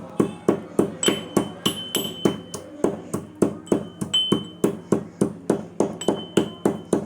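Whole spices (cardamom, fennel, cloves, black pepper) being pounded to crush them, a steady run of sharp strikes, about three a second, each with a short metallic ring.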